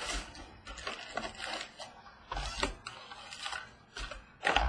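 A small cardboard box of trading cards being torn open and its wrapped cards handled on a tabletop: an irregular run of tearing, crinkling and clicking, with the loudest burst near the end.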